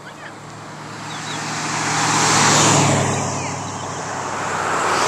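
A car passing by: engine and tyre noise builds to a peak about halfway through and fades, and another vehicle approaches near the end. No horn sounds.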